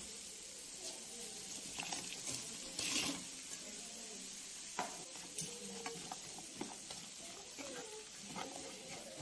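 Sauce sizzling in a frying pan as fried chicken pieces are tipped in from a bowl, with a louder rush of sizzle about three seconds in. After that a spatula stirs the pan, with a few sharp clicks against it.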